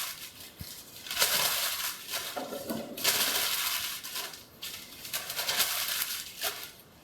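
Sheets of paper being crumpled by hand, one after another, in repeated crackling bursts of a second or so each, as kindling is stuffed into a fireplace under the logs.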